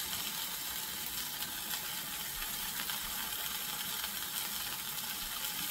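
Steaks searing in oil in a Le Creuset enamelled cast-iron skillet: a steady sizzle with fine crackling.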